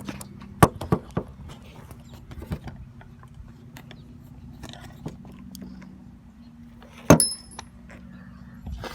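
Scattered metallic clicks and clinks of hand tools and bolts while a car's trunk latch is bolted back in, over a steady low hum. About seven seconds in comes the loudest clink, which rings briefly.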